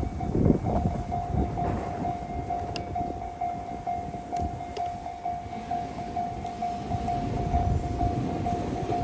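Japanese railroad crossing's electronic warning bell ringing in an even, steady pulse of about two beats a second, over a low rumble of rail traffic.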